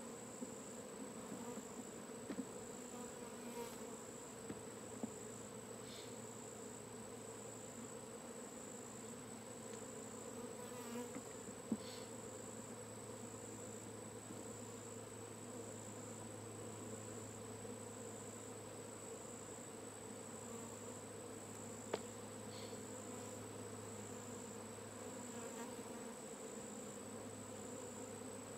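A honeybee swarm buzzing steadily as the bees fly around the tree limb they keep coming back to, which the beekeeper takes as a sign the queen was not caught. A couple of sharp clicks stand out, near the middle and again later.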